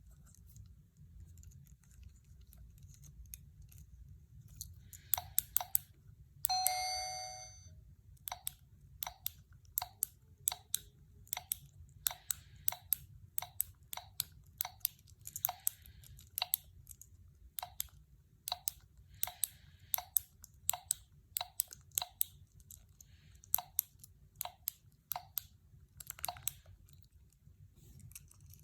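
Silicone pop-it fidget keychain having its bubbles pushed through one after another: a long run of short pops, roughly one or two a second, beginning about five seconds in. A brief ringing tone sounds near the start of the pops.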